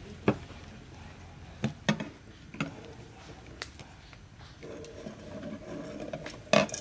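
Eggs being set down one by one into an aluminium pot and handled inside it: a series of sharp clicks and knocks of shell and hands against the metal, the loudest near the end.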